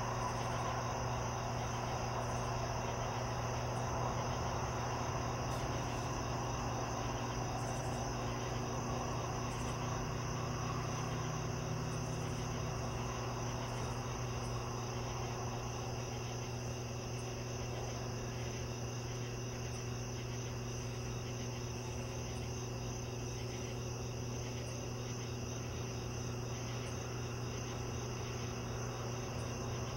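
Crickets chirping in a steady, continuous night chorus, with a low steady hum beneath and a soft rushing noise that eases off about halfway through.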